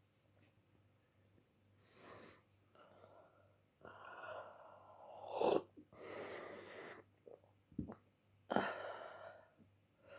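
A person with the flu coughing from the throat, with wheezy breaths between the coughs; the loudest, sharpest cough comes about five and a half seconds in.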